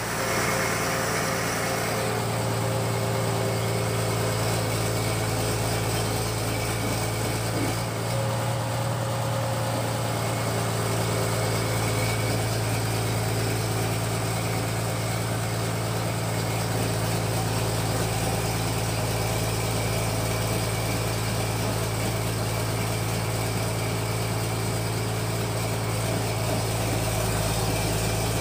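Fish-feed pellet machine running under load, pressing strands of feed out through its die, with a steady low drone.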